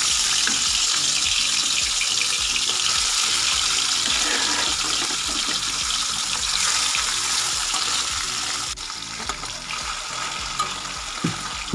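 Tilapia pieces rubbed with salt and turmeric sizzling loudly as they fry in hot refined vegetable oil in a metal kadai. The sizzle eases a little about nine seconds in, and there are a couple of light knocks near the end.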